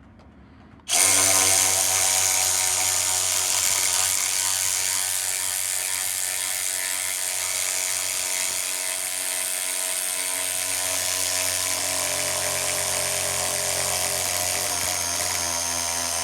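DeWalt DCS510 cordless 3/8-inch sealed-head ratchet driving a 1/4-inch by 6-inch lag screw. Its motor starts about a second in and runs steadily under load, and partway through its note changes as it kicks into an overdrive.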